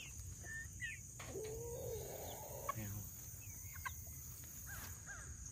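Young chickens peeping and chirping in short calls that slide in pitch, with one longer, rough, wavering call about a second in and a quick run of falling chirps near the end.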